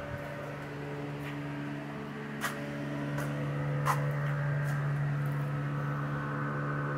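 A steady electric machine hum, growing a little louder partway through, with a few light sharp clicks and knocks, the loudest about four seconds in.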